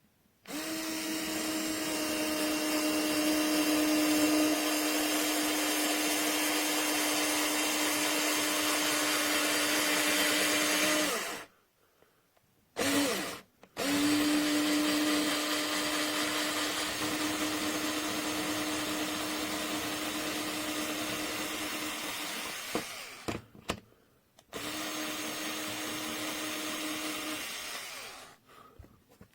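Kiprim 4V cordless electric screwdriver's small motor spinning freely with a steady whirring hum. It runs for about eleven seconds, gives a brief blip, runs again for about nine seconds, then gives one more short run of about three seconds near the end.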